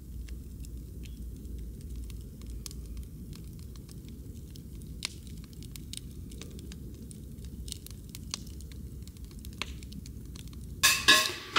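Wood fire burning in a mesh-domed fire bowl, crackling with faint scattered pops and snaps over a low steady rumble. A much louder noise cuts in near the end.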